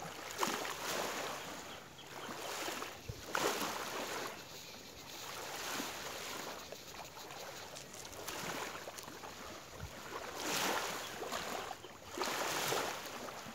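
Small waves lapping on a sandy riverbank, with wind, swelling and fading every couple of seconds.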